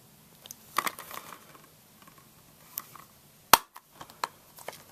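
Handling of a plastic Blu-ray case: a few scattered clicks and taps, the sharpest about three and a half seconds in.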